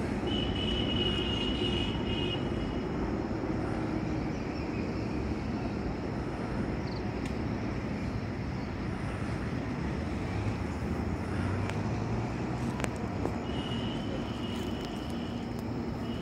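Steady outdoor background noise, a broad rumble and hiss like distant traffic, with a brief high thin tone near the start and again near the end.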